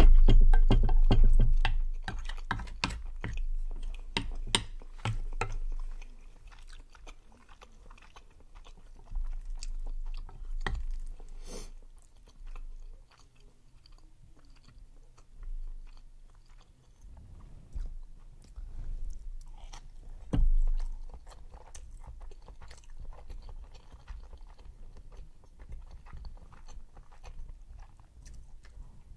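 Close-miked chewing of chewy rice cakes and melted cheese: wet mouth sounds and clicks, loudest and busiest in the first few seconds, then coming in quieter bouts with a single sharp knock about twelve seconds in.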